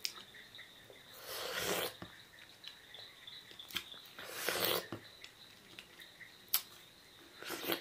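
Someone eating sohphie fruit: small wet mouth clicks and chewing, with two longer breathy hissing sounds about a second in and midway, and a couple of sharper clicks near the end.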